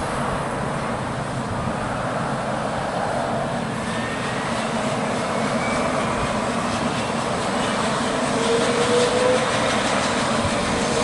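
AgustaWestland AW139 helicopter's twin Pratt & Whitney Canada PT6C-67C turboshaft engines and main rotor running, a steady turbine rush with a whine that rises in pitch about halfway through and again near the end as the engines spool up.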